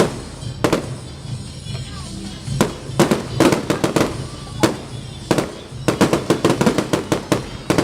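Fireworks display: aerial shells bursting in loud, sharp bangs a second or so apart, then a rapid run of bangs with crackling about six seconds in.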